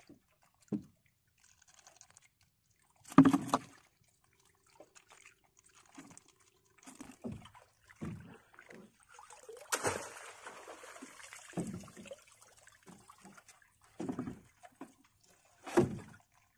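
Water splashing and dripping as a wet net trap is hauled out of the sea into a small boat, with scattered knocks. The loudest knock comes about three seconds in, another comes near the end, and a longer rush of water runs for about a second and a half a little past the middle.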